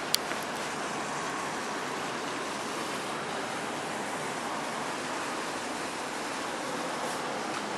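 Steady rushing outdoor city ambience, with one sharp click just after the start.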